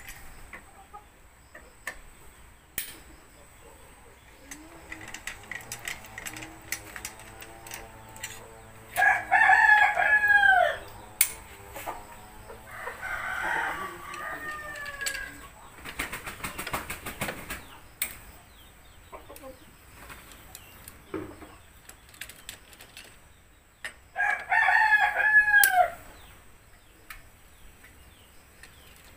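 A rooster crowing loudly twice, once about nine seconds in and again near the end, each crow ending in a falling note. Between the crows there are light clicks and clinks of hand tools on metal.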